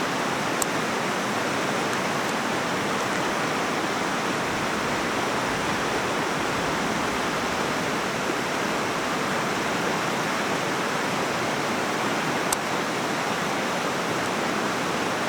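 Waterfall on a river: a steady, even rush of falling water, with two faint sharp ticks, one just after the start and one near the end.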